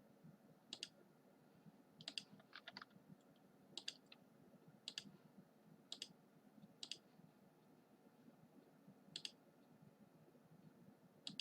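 Faint, scattered clicks of a computer mouse or keyboard, about ten in all at irregular spacing, with a quick cluster of several about two seconds in.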